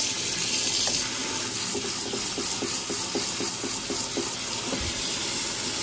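Kitchen tap water running steadily onto dry black beans as they are rinsed, with faint light clicks as the beans are stirred in the stream.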